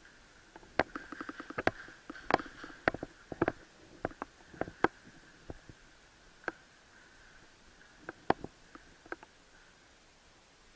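Footsteps and gear of a player moving over a dirt and rubble floor: irregular scuffs and clicks, bunched together in the first half and sparser later.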